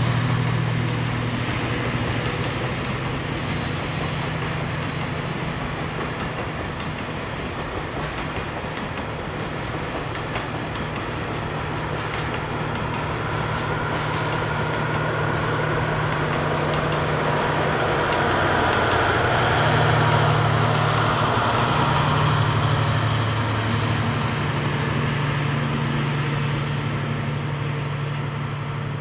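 Diesel-hauled freight train passing, a DF200 diesel locomotive with its wagons: a steady low engine drone over the rumble of the wagons, growing louder about two-thirds of the way in.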